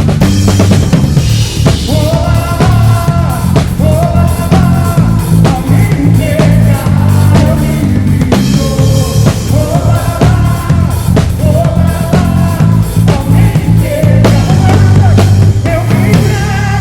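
Band music with a steady drum-kit beat, a bass line and a melody line over it.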